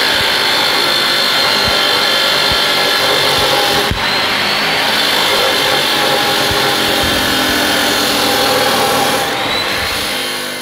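Abrasive cut-off saw (chop saw) with its cutting disc grinding through square hollow steel tube: a loud, steady whining grind. There is a brief dip about four seconds in, and near the end the whine rises in pitch as the sound fades away.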